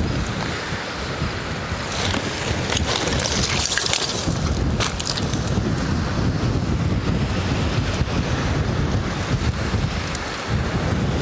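Wind buffeting the microphone: a steady low rumble. A stretch of brighter rustling with a few clicks comes a couple of seconds in.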